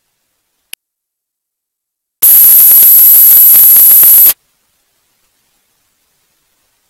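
A loud burst of static hiss with a high steady whine on top, lasting about two seconds and cutting off abruptly, set in otherwise dead silence. A single faint click comes about a second before it.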